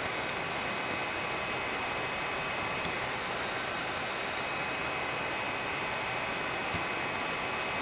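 Small cooling fan inside an ultrasonic dental scaler running steadily with an even whoosh, its newly replaced fan now running smooth and quiet. A couple of faint light clicks sound over it.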